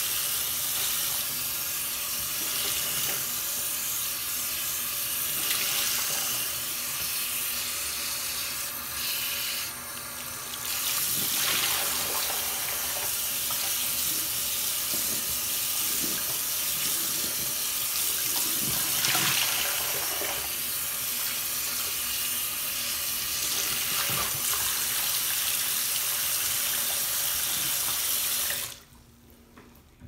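Bathroom sink faucet running steadily into the basin, with irregular splashes as a sponge is rinsed and squeezed under the stream. The tap is shut off about two seconds before the end, and the water stops abruptly.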